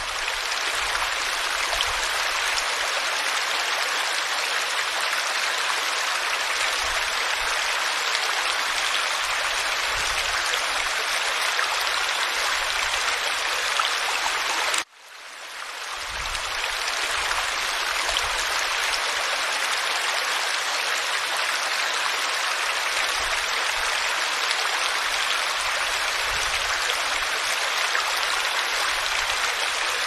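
Small stream tumbling over a low rocky cascade into a shallow pool: steady rushing, splashing water. About halfway through it cuts out abruptly and swells back in over a second or so.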